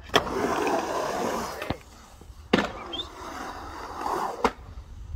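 Skateboard wheels rolling over a concrete bowl, with sharp clacks of the board striking the concrete: one near the start, a loud one about two and a half seconds in, and another near the end.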